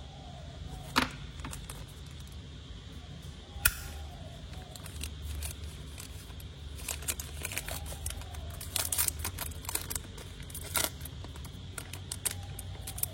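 Zippo lighter handled: sharp metallic clicks of the hinged lid flipping open and snapping shut, single clicks at first and a quick cluster in the second half.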